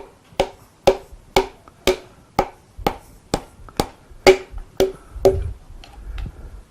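Piston being tapped down through a ring compressor into the cylinder bore of an MGB's B-series engine with a hammer, sharp woody knocks at about two a second that grow fainter after about five seconds as the piston slides home.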